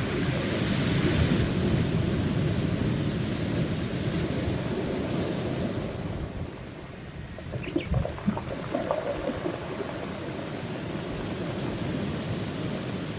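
Sea waves washing onto a rocky shore, with wind on the microphone. The surge eases about halfway through, and a few faint clicks follow.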